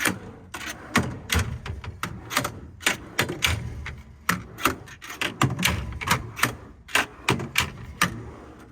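Metal tool-storage drawers in a truck service-body compartment being slid open and pushed shut: an uneven run of sharp clacks and dull thuds, about three or four a second.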